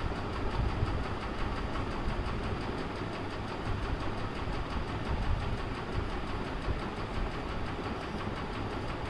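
Steady mechanical rumble with a hiss over it.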